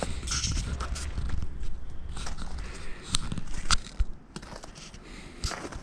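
Footsteps crunching through snow: irregular crunches and clicks, with a low rumble in the first second or so.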